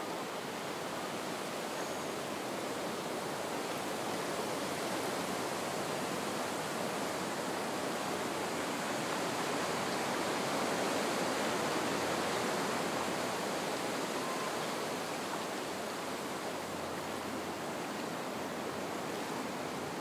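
Soft wind blowing across the marsh reedbeds: a steady, even rush that swells a little about halfway through.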